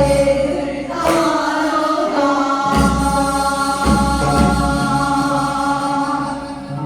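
Korean folk song (minyo) sung by a woman's voice with instrumental accompaniment, ending on one long held note over several drum strikes.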